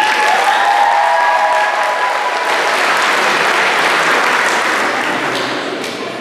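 Audience applause, with a few high held cheers in the first two seconds; the clapping dies away near the end.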